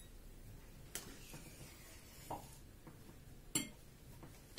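Faint, sparse clinks and taps of a spoon against a bowl and a sour cream tub as sour cream is spooned onto bread cubes. There are three light strikes about a second apart, the middle one ringing briefly.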